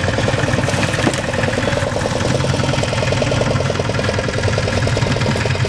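Fishing boat's engine idling with a steady, even beat, and a single knock about a second in.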